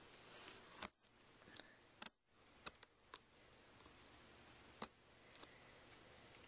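Switchblade cutting the packing tape on a cardboard shipping box: faint scraping with about eight sharp clicks scattered over the few seconds.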